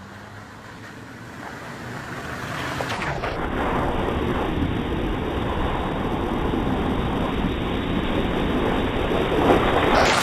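Land Rover Defender TD5 engine running as the 4x4 approaches, growing louder. From about three seconds in, a loud, steady rush of water splashing as its tyres plough through puddles, which keeps on as it passes close by.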